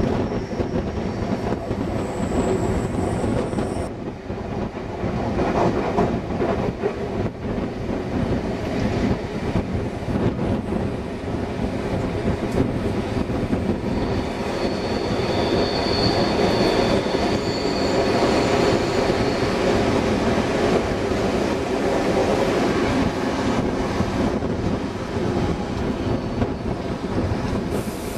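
Passenger carriages of a steam-hauled train running at speed, heard from an open carriage window: a steady rumble and clatter of wheels on the rails. For a few seconds around the middle, while the train runs through a tunnel, there is a high-pitched wheel squeal.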